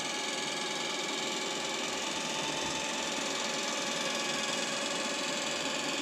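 Electric motor and gear drivetrain of an Axial SCX10 III Jeep Wrangler RC crawler whining steadily as it crawls through soft sand.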